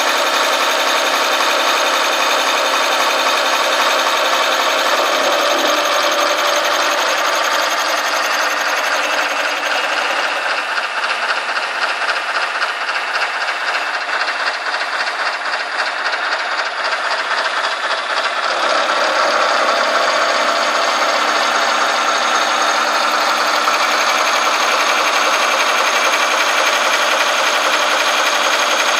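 CNC machining center milling the side of a metal block with a right-angle head, giving a loud, steady cutting noise with high ringing tones. The noise turns quieter and rougher about ten seconds in and returns to full strength about eight seconds later.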